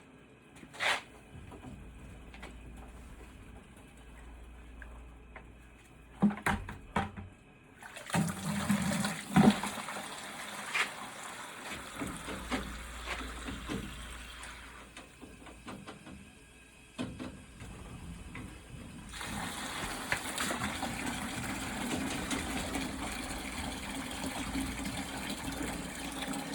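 Water rushing from a hydronic heating zone's purge valve into a bucket as the zone is flushed of black, tar-like sludge. A few clicks and knocks come first; the flow starts about eight seconds in and runs steadily after a short dip.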